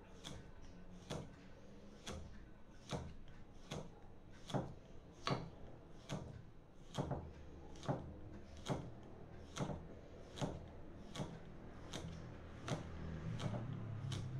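Large kitchen knife scoring a piau fish fillet in thin, closely spaced cuts, the blade knocking on the wooden chopping block in a steady rhythm a little more than once a second.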